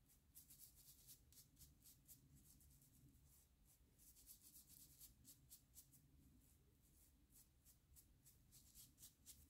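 Faint scrubbing of a scouring sponge rubbed back and forth over a wooden screwdriver handle: quick strokes about four a second, in three runs with short pauses between them, over a low steady hum.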